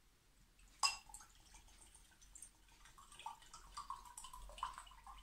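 Flaxseed infusion (water with flax mucilage) poured from a small brown glass bottle into a glass: a sharp click about a second in, then faint, irregular trickling and gurgling.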